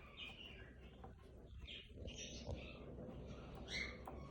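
Caique parrot giving a series of short, quiet chirping calls, about five in all; the bird is agitated.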